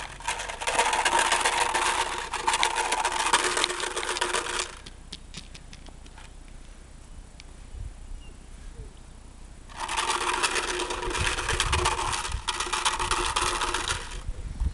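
A steady mechanical buzz in two stretches of about four to five seconds each. It stops for about five seconds in between, when only a few faint clicks are heard.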